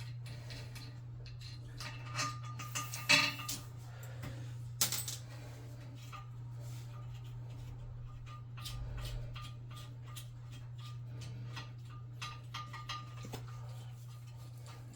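Scattered metallic clinks and clicks of tools and small toilet parts being handled, loudest about three seconds in and again near five seconds, over a steady low hum.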